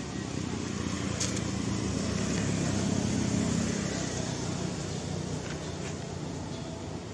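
A road vehicle passing: a low engine and tyre rumble that swells to a peak about three seconds in, then fades away.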